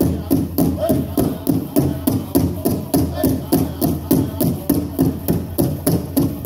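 Powwow drum group singing over a steady, even drumbeat of about three beats a second, accompanying a jingle dress dance.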